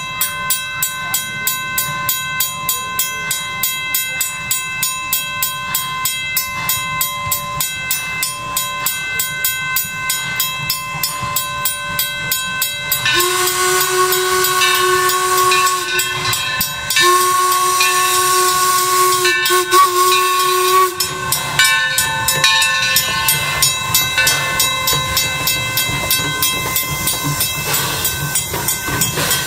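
The 1873 Mason-built steam locomotive Torch Lake chuffing in an even beat of about two to three exhaust beats a second as it works its train. About halfway through it blows its steam whistle in two long chord blasts, the second briefly broken near its end.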